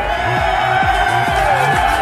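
Electronic music with a steady, deep beat of about two kicks a second under sustained synth tones.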